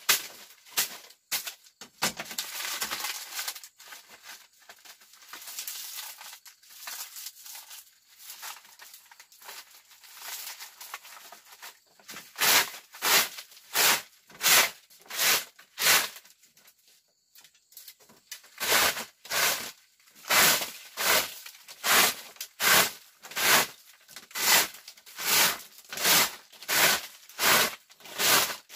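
Irregular rustling and crackling, then steady rhythmic scraping or swishing strokes, about two a second, with a short pause around the middle.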